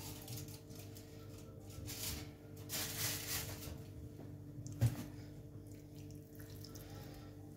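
Kitchen work sounds: a few short hissing or rustling bursts, then one sharp knock about five seconds in, over a steady low hum.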